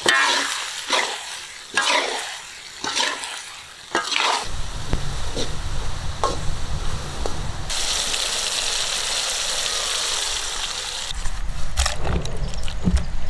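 Chopped onions, tomatoes and curry leaves sizzling in oil in an iron wok, a spatula stirring and scraping the pan in strokes about once a second. After about four seconds the stirring gives way to a low rumble and a steady high hiss. Knocks and scrapes come near the end as the fried masala is tipped onto a stone grinding slab.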